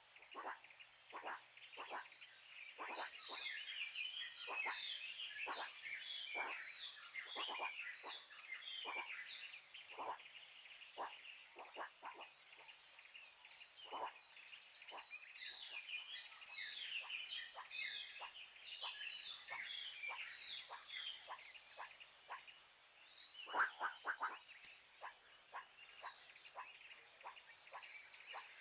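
A steady chorus of short animal calls, several a second and overlapping, each dropping sharply in pitch. A louder cluster of calls comes about three-quarters of the way through.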